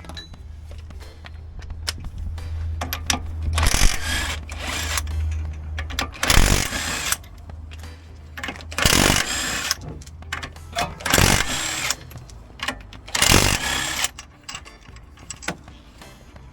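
Impact wrench fitted with a 19 mm half-inch-drive socket, firing in five bursts of about a second each to undo the wheel fasteners.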